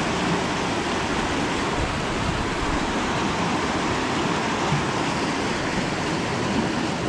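River rapids: fast white water rushing over rocks, a steady, unbroken noise of water.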